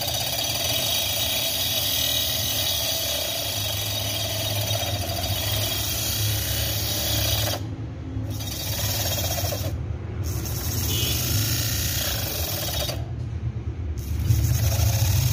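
Homemade DC-motor table saw, its small circular blade spinning and cutting into a wooden rod with a steady grinding whine over a low hum. The high-pitched part of the sound cuts out briefly three times, around the middle and near the end.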